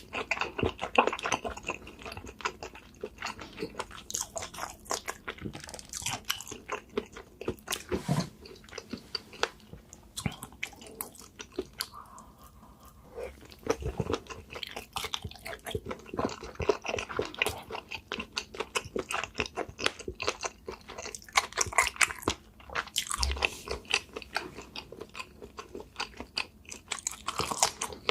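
A person eating spicy seafood close to the microphone: steady chewing and biting with crunchy, wet mouth clicks, easing off briefly about halfway through.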